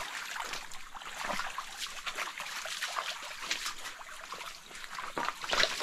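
A small stream trickling, with scattered light taps and crackles over it.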